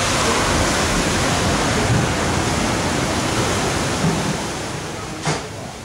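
Steady, even rushing noise that eases off near the end, with one short thump about five seconds in.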